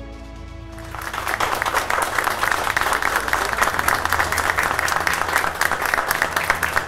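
Background music plays, then applause begins about a second in: many hands clapping steadily, louder than the music.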